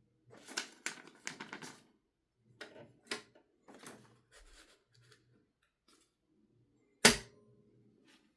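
Olivetti Linea 88 manual typewriter being typed: quick runs of key strikes clacking in short bursts, then one much louder, sharp clack about seven seconds in.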